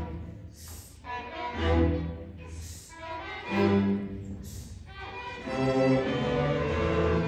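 A school string orchestra of violins, cellos and double basses playing with bows, the low strings swelling in phrases that grow fuller and steadier in the last second or so. Three short hissing accents sound about two seconds apart.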